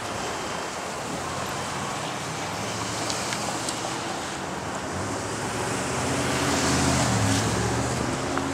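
Street traffic: cars and trucks driving past, with one vehicle's engine growing louder about six seconds in and easing off near the end.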